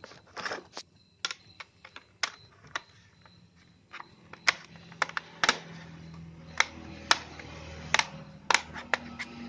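Irregular single key presses on a laptop keyboard, sharp clicks one or two a second. A low steady hum comes in about four seconds in.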